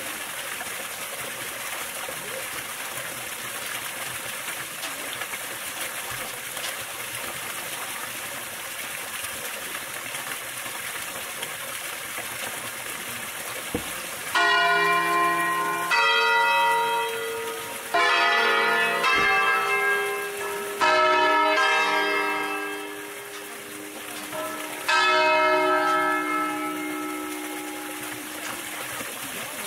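Bells of a five-bell peal in E-flat, Pruneri-cast bronze, struck one stroke at a time on different pitches while hanging still. The strokes begin about halfway through, roughly two seconds apart, each left to ring on, with a longer pause before the last. Before them there is only a steady rush of running water.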